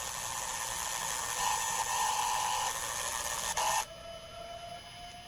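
Loud static hiss that cuts off suddenly a little under four seconds in. A single steady tone then starts and slowly rises in pitch: a siren beginning to wind up.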